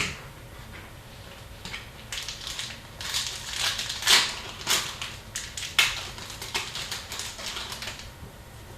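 Hockey card pack wrapper crinkling and tearing as a pack is opened and the cards are handled: a run of crackly, scratchy rustles with several sharper crackles in the middle.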